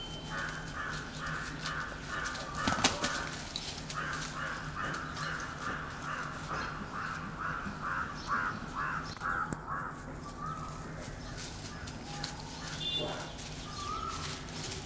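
A bird calling in runs of short, harsh, repeated notes, about three a second: one short run, then a longer one of some six seconds. One sharp, loud knock or flap comes about three seconds in.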